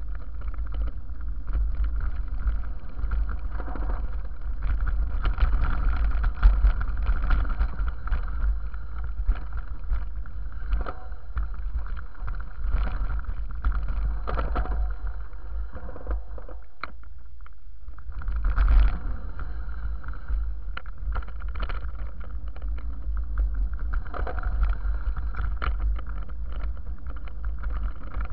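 Mountain bike descending a rough dirt singletrack, heard from a camera mounted on the rider or bike: a steady wind rumble on the microphone, with the tyres crunching over dirt and stones and the frame rattling and knocking over bumps. There is a short, quieter lull a little past halfway.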